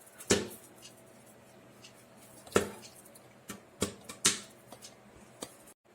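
Popcorn kernels popping one by one inside a covered cooker: about six sharp pops a second or so apart. The sparse popping is typical of the batch nearly done.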